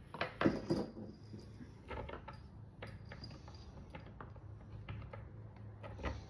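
Scattered light clicks and knocks of bar-stool parts and hand tools being handled during assembly, loudest in the first second, over a steady low hum.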